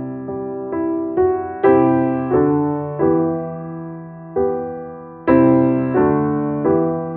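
Slow, gentle solo piano music: chords and single notes are struck every half second to a second and a half, each one dying away before the next.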